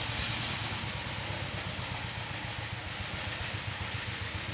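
Steady rumbling and hissing outdoor background noise, with an uneven low flutter and no distinct events.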